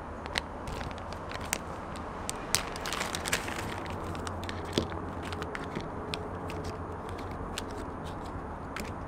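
Foil snack sachets and their foil outer bag crinkling and crackling as they are handled and pulled out, sharp crackles densest about three seconds in. A steady low rumble runs underneath.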